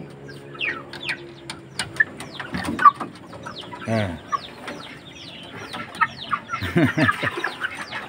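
Young crossbred Burmese–Thai chickens peeping in a rapid run of short, high, falling notes. A lower, louder squawk comes about four seconds in, and a couple more come near seven seconds.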